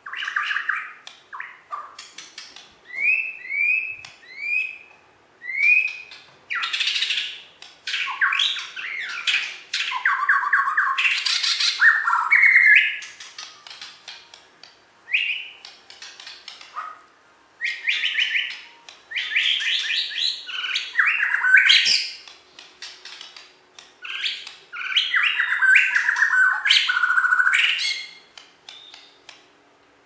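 White-rumped shama (Bornean murai batu) singing in a cage: a few short rising whistles, then bursts of fast, varied trills and warbles separated by short pauses.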